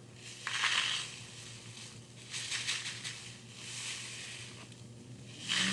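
Homemade rain stick, a cardboard tube with rice inside, being tipped so the grains pour through it in several hissing, rushing swells like falling rain.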